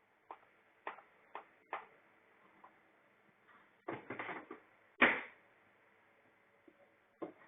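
Highchair parts being handled: a string of sharp knocks and clicks, several spaced about half a second apart at first, then a quick cluster about four seconds in and the loudest knock about five seconds in.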